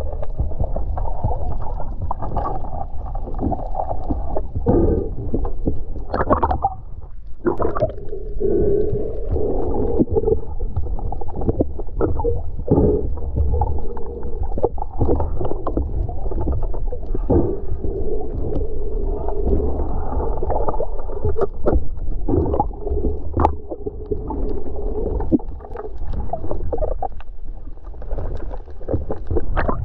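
Muffled underwater water noise picked up by a camera held below the surface: a steady low rumbling wash with scattered clicks and knocks.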